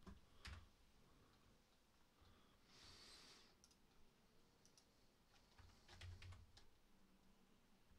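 Near silence, with faint scattered clicks of a computer keyboard and mouse. A short, soft hiss comes about three seconds in.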